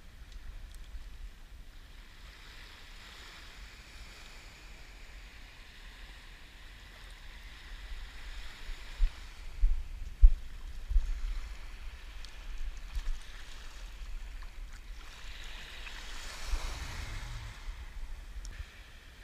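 Small waves washing over the shallows of a sandy beach, swelling twice, a few seconds in and again near the end, with wind buffeting the microphone in low thumps around the middle.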